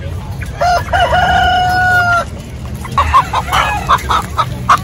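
A rooster crows once, a long held call of about a second and a half. A run of short, quickly repeated clucking notes from chickens follows.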